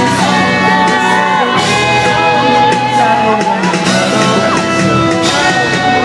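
Loud live pop concert music over an arena sound system, with singing and the audience shouting and singing along, picked up by a phone in the crowd.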